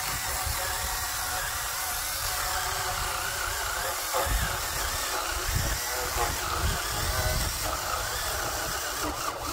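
SnapFresh 20-volt battery mini chainsaw's electric motor and chain running steadily while cutting through a thick log. The pitch wavers as the chain works under load, with a few low knocks partway through.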